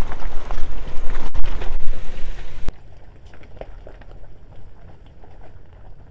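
2007 Nissan Xterra crawling over a rocky trail: a loud, rough rumble and crunch of tyres over stones close by. About two and a half seconds in it cuts to a much quieter, more distant crunching with scattered clicks of stones.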